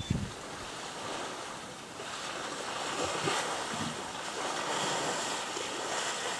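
Muddy water splashing and sloshing as African bush elephants wade and shove each other through a shallow waterhole, growing louder about two seconds in. A brief low thump right at the start is the loudest moment.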